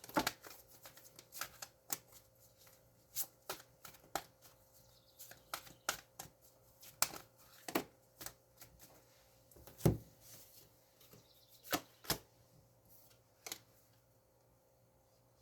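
Tarot cards being shuffled and handled: irregular sharp clicks and light slaps of cards, stopping near the end.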